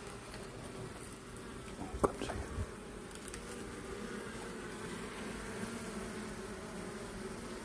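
A faint, steady buzzing hum with a slightly wavering pitch, broken about two seconds in by a sharp knock and a few softer knocks.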